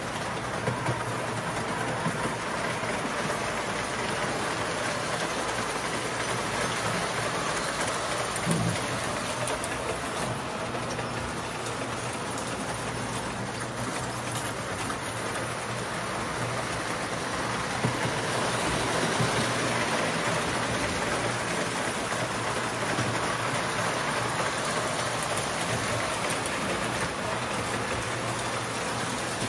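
Lionel three-rail electric model train running on metal track, with a steady rushing clatter of its wheels on the rails and its motor running. A steady low hum lies under it, with a few brief clicks.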